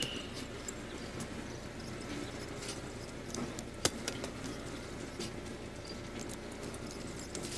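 A hand brushing and picking at dry dirt and grit on the ground: faint scattered ticks and rustles over a low hiss, with one sharper click about four seconds in.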